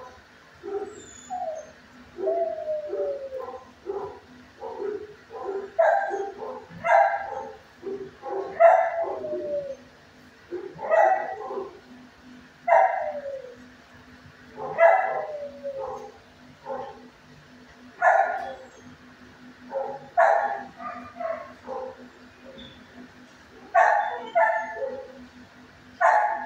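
Dog barking and yelping repeatedly: short, softer calls at first, then louder barks every second or two from about six seconds in, several sliding down in pitch.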